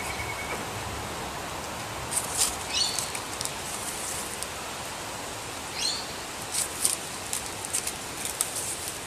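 Thin dyed paper pages of a handmade booklet being turned and handled, giving short crackling rustles. Behind them is a steady hiss of wind on the microphone.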